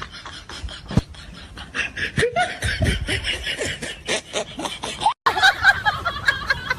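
People laughing and snickering, broken by a sudden cut about five seconds in.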